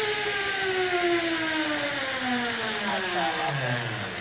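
Zip line trolley pulleys whirring along the steel cable, the whir falling steadily in pitch as the trolley slows and fading out near the end, over a steady hiss.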